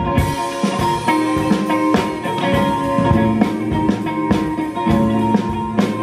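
Live rock band playing an instrumental groove: electric guitar and bass over a drum kit.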